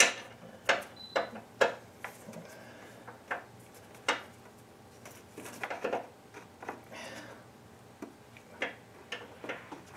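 Hand tools clinking and knocking against metal parts in a car's engine bay: a dozen or so separate sharp clicks at irregular spacing, with no steady running machine.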